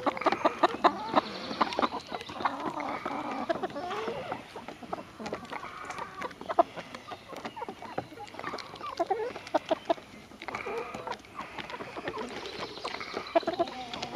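A mixed flock of hens (White Rocks, Barred Rocks and Australorps) clucking and calling close by, the calls busiest at the start and again near the end, thinning out in the middle.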